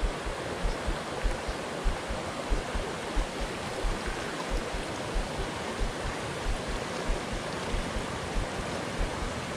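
Steady rushing of a flowing creek, with soft low thumps about two or three times a second.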